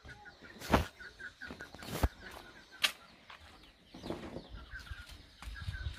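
Chickens clucking, with a rapid run of short high chirps, broken by three sharp knocks in the first three seconds.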